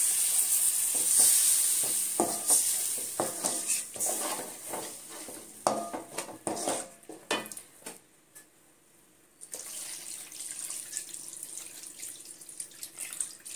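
A wooden spatula stirring and scraping thin tamarind gravy in a metal pan, with knocks against the pan and a hiss of the hot liquid that is loudest in the first few seconds. After a short quiet gap, water is poured into the pan in a steady stream near the end.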